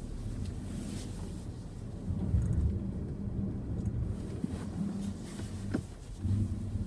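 Low rumble of a Hyundai Creta 4WD driving, heard inside the cabin, with a few short clicks.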